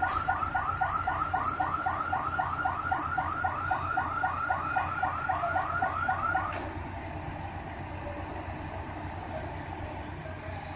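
Electronic warning alarm warbling rapidly, about four sweeps a second, stopping after about six and a half seconds, with an engine running steadily underneath.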